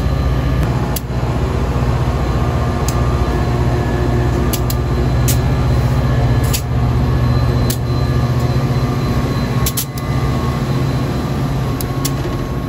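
Metra EMD F40PH diesel locomotive's engine running steadily at close range, a loud, even low hum that does not change. A few sharp clicks sound over it at irregular moments.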